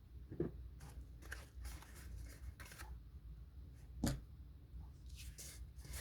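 Paper and cardstock being handled and slid about: a run of short rustling, scraping strokes, with a soft knock about half a second in and a sharper, louder knock about four seconds in.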